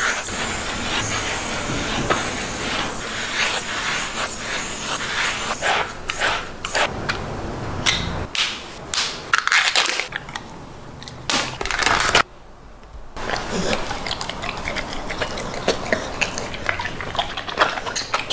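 A pit bull-type dog licking and lapping up wet food, a run of quick wet smacking and slurping clicks. It breaks off suddenly for about a second, about two-thirds of the way through, then goes on.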